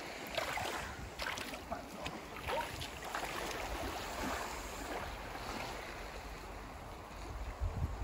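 Beach ambience: a steady wash of small waves and wind, with faint scattered clicks and scuffs.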